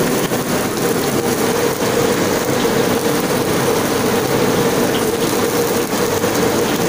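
Steady roar of a gas stove burner under a wok of boiling chicken broth, with a constant hum.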